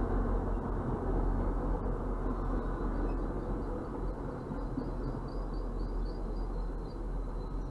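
MBTA commuter rail passenger coaches rolling past at close range: a steady rumble and rattle of steel wheels on the rails over a low drone, easing gradually. Heard from inside a car.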